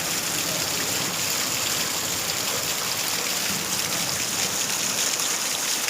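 Heavy rain pouring down steadily, a dense even hiss of falling water.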